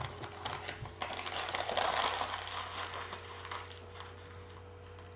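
Gift wrapping paper crinkling and tearing as a present is unwrapped by hand, busiest in the first three seconds, then dying away, leaving a faint steady hum.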